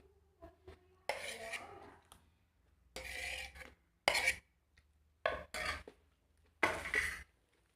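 Eating utensil scraping and clinking against a plate of rice and swamp cabbage, in about five short bursts.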